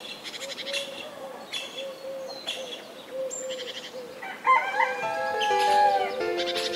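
Birds chirping in short bursts about once a second, then a rooster crows in one long call about four and a half seconds in. Music with plucked-sounding notes begins near the end.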